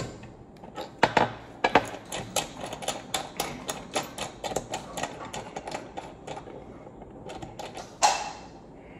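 Rapid, irregular clicking from the handle of a rear sight pusher tool being worked to drive a pistol's rear sight across the slide's dovetail, with one louder knock near the end.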